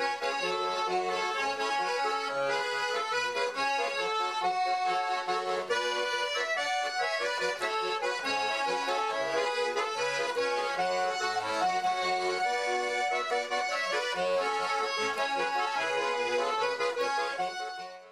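Intro music played on accordion, a tune of steady chords and melody that fades out near the end.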